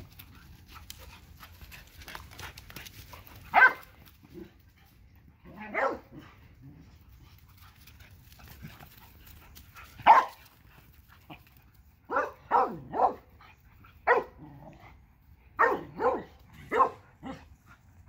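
Dogs barking in short bursts while play-fighting. There are single barks at first, then from about two-thirds of the way in, quick runs of two or three barks.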